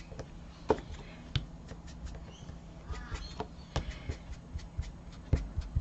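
Irregular soft taps and clicks of craft handling on a work table: finger ink daubers dabbing ink onto a die-cut paper flower and ink pads being picked up and set down, over a faint steady low hum.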